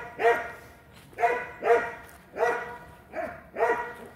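Dog barking repeatedly: about seven fairly high-pitched barks in quick succession at an uneven pace.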